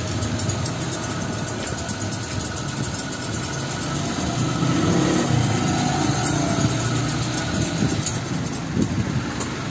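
Steady street traffic noise, with motor vehicle engines running.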